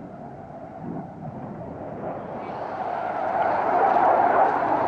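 Panavia Tornado GR4 jet on a display pass, its twin RB199 turbofan engines a rushing jet noise that grows steadily louder, turning brighter and harsher from about two seconds in.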